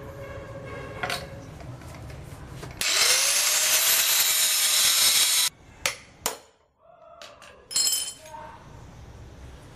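A power tool runs for about two and a half seconds, its motor winding up at the start and then cutting off abruptly. It is followed by a couple of sharp clicks and a second, short burst from the tool.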